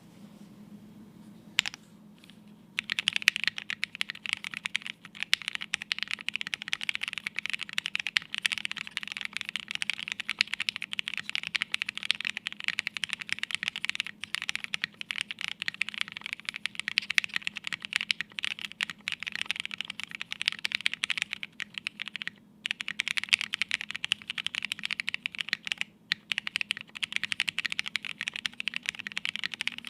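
Fast, continuous typing on a plateless Nue mechanical keyboard with lubed and filmed Alpaca linear switches and Hammerworks CRP keycaps, no foam inside. A couple of single key presses come first, steady typing starts about three seconds in, with two brief pauses near the end.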